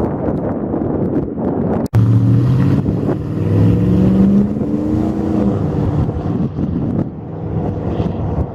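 Boeing 737-800's CFM56 turbofan engines running at high power on departure: a steady rumble with wind on the microphone. About two seconds in the sound cuts out for an instant, then a set of tones rises slightly in pitch and holds for a few seconds.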